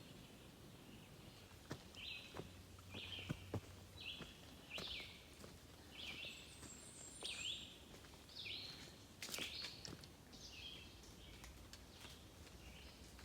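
A bird singing a string of short, repeated high phrases, each under a second apart, over faint woodland background noise. There are a few soft clicks, loudest near the start and around the middle.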